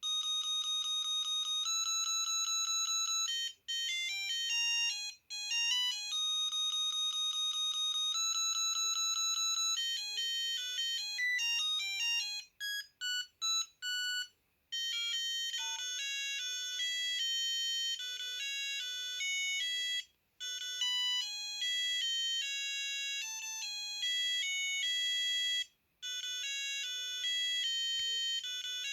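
Samsung SGH-A300 mobile phone playing its built-in ringtone melodies: bright, beeping electronic tunes. They stop and start again with a different tune several times.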